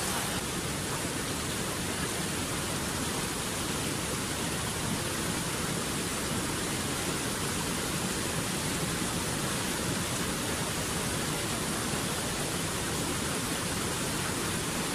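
Small mountain stream running and splashing over rocks in a little cascade, a steady rushing noise that stays even throughout.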